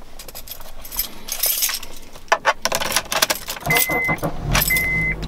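A bunch of car keys jangling and clicking as a key is fitted into the ignition, with two short high beeps in the second half.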